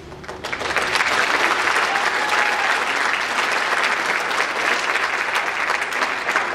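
Audience applause, rising quickly about half a second in and then holding steady.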